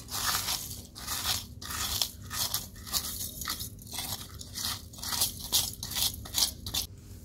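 Metal spoon scraping ground fried edible gum (gond) out of a steel bowl into a cooking pot: a run of gritty scrapes and crunches, about two a second.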